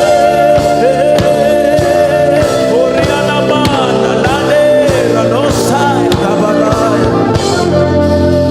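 Live worship music: a singer's sliding, wavering vocal lines over sustained chords and percussion strokes.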